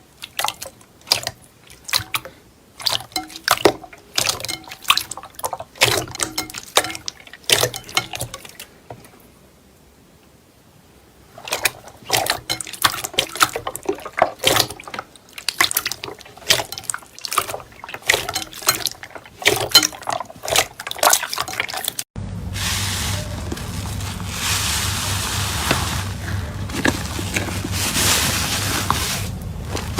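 Slime being squeezed and pressed by hand: a run of irregular wet clicks and pops, pausing for a couple of seconds near the middle. About twenty-two seconds in, the sound cuts abruptly to a steadier, denser crackling hiss.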